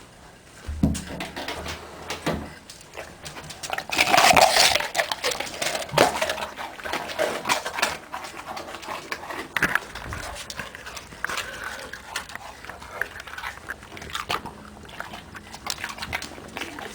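A dog making sounds, the loudest a roughly one-second sound about four seconds in, among scattered clicks and knocks.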